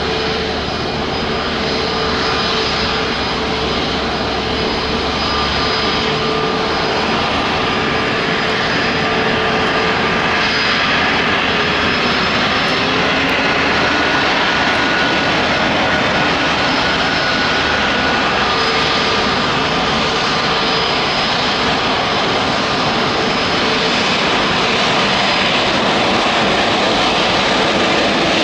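Boeing 777-300ER's twin GE90-115B turbofan engines running as the airliner comes in low and lands: a steady, loud jet noise with faint whining tones, growing a little louder partway through.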